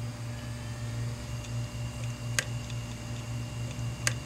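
Western Digital 500GB hard drive clicking over a steady hum: two sharp head clicks about a second and a half apart, with fainter ticks between. The clicking is the sign of damaged read/write heads, killed by frost that formed on the platters in the freezer.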